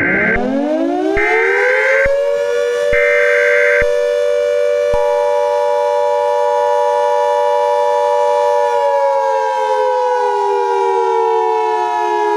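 Civil defense warning siren winding up over about two seconds, holding a steady wail, then slowly winding down near the end. A second, higher siren tone joins about five seconds in. Three short buzzing beeps sound over the first four seconds.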